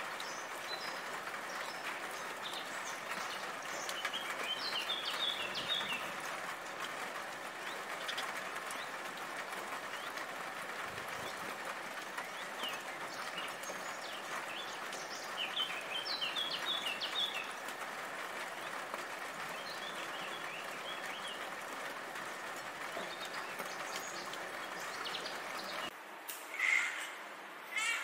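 House sparrow chirping in short scattered bursts over a steady hiss of falling rain. Near the end the rain cuts out and a domestic cat meows twice.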